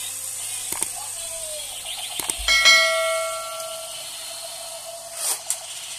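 Battery-powered toy robot making electronic sound effects: a faint steady tone with a few clicks, then about two and a half seconds in a knock followed by a bell-like chime of several tones that fades within about a second.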